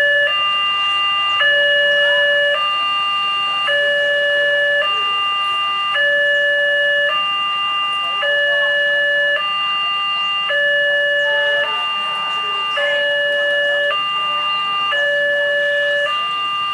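Railway level-crossing warning siren, a recording played through a megaphone, alternating steadily between two tones, each held about a second.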